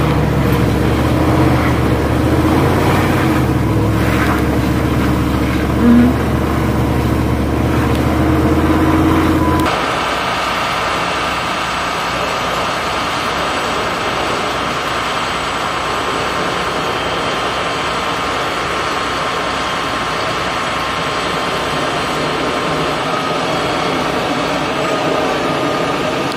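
Vehicle engine hum and road noise heard from inside a car driving on a snow-covered road, with a brief tone about six seconds in. About ten seconds in it changes suddenly to a steady idling engine with a thinner, even hum.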